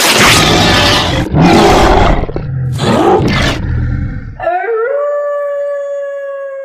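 Werewolf transformation sound effect: a rough, loud beast growl that swells three times over about four and a half seconds and stops abruptly, then one long wolf howl held on a steady pitch.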